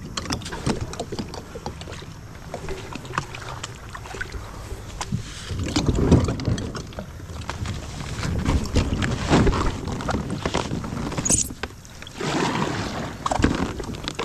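A kayak being worked up a shallow, rocky creek: paddle splashes and the hull knocking and scraping on rocks in many short, uneven knocks. There are heavier thumps about six and nine seconds in.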